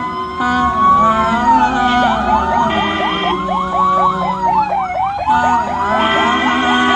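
Ambulance sirens wailing in a slow rise and fall, overlaid by a rapid yelping warble in two stretches. A steady tone sounds briefly twice, about three seconds in and again near the end.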